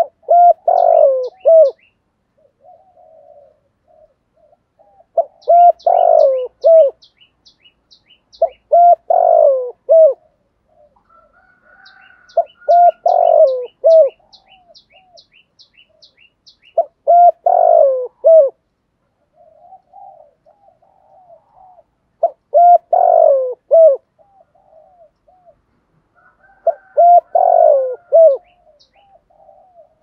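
Spotted dove cooing: seven loud phrases of several coos each, coming about every four seconds, with softer, lower cooing between the phrases.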